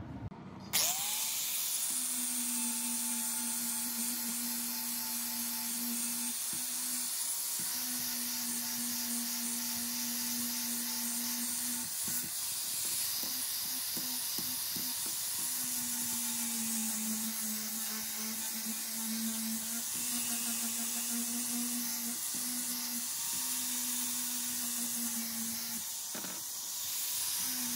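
Angle grinder running with an abrasive disc against a rusty steel saw frame, grinding off rust: a steady motor hum under a loud, high hiss of the disc on metal. It starts about a second in, and the motor's pitch dips and recovers a few times as the disc works.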